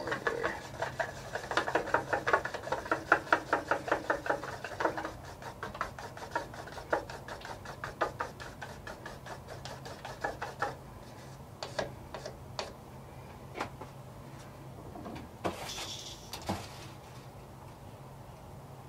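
Small stick stirring thinned airbrush paint in a small cup, a fast, even ticking of several strokes a second that stops after about ten seconds, then scattered light clicks and a short hiss near the end.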